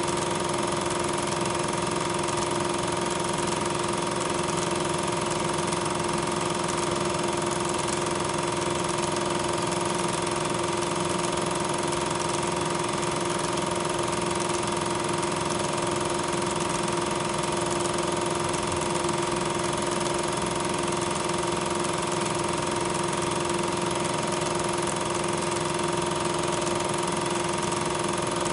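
Steady, unchanging mechanical hum and hiss with two held tones, one low-middle and one higher. It runs on unchanged through the picture cuts, so it is not the trains shown: regular 8mm film carries no soundtrack.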